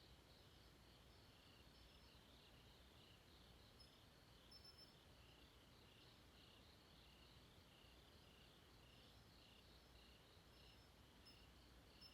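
Faint night insect chorus of crickets chirping in quick repeated pulses, with a couple of brief higher chirps, one about halfway through and one near the end.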